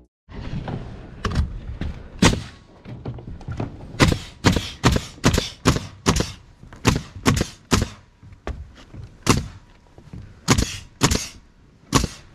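Pneumatic nail gun firing nails through plywood roof sheathing: sharp shots in quick succession, a run of about two a second in the middle, then a few spaced-out shots.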